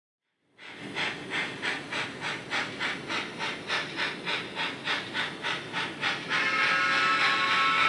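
Model steam locomotive sound: steady chuffing at about three to four beats a second, starting about half a second in, with a steam whistle sounding and holding from a little after six seconds.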